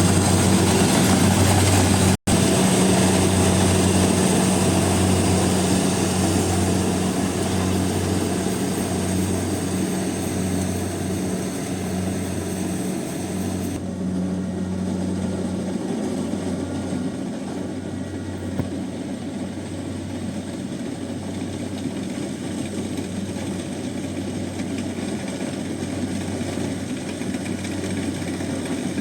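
Small Kubota combine harvester running steadily with a deep, even hum while harvesting rice, growing fainter over the first twenty seconds or so. The sound drops out for an instant about two seconds in and turns duller from about halfway.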